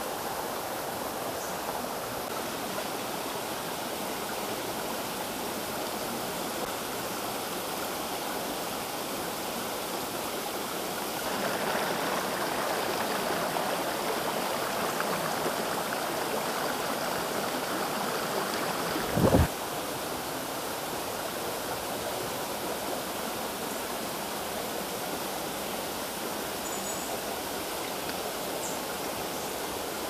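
Water of a rocky forest stream running over stones, a steady rush. It grows louder for several seconds in the middle, then drops back after a short thump.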